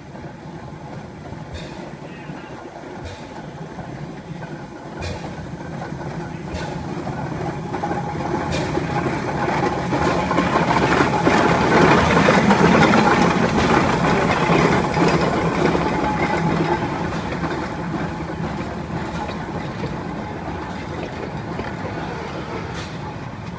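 Climax geared steam locomotive and its wooden carriages rolling into the station past the listener. The sound builds to its loudest about halfway, as the engine goes by close, then eases off as the carriages follow.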